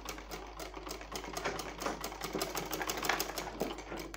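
Black Rita straight-stitch sewing machine running a seam through fabric: a fast, even run of needle-and-feed clicks.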